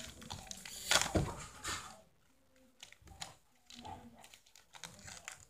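Foil trading-card booster pack rustling and crinkling as it is torn open and the cards handled. The loudest rustle comes about a second in, followed by faint scattered clicks of cards being handled.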